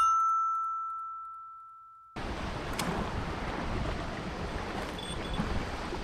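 A single chime sound effect rings out and fades away over about two seconds. Then a steady outdoor noise of wind and sea takes over.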